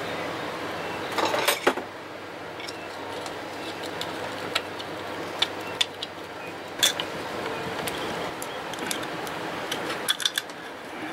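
Scattered light metallic clinks and taps of hand tools and small metal parts as the wiring of an outboard motor's powerhead is worked on, over a steady low hiss.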